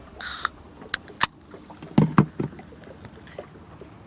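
Handling noises in a fishing boat: a short hiss about a quarter second in, two sharp clicks about a second in, then a quick cluster of low knocks about two seconds in.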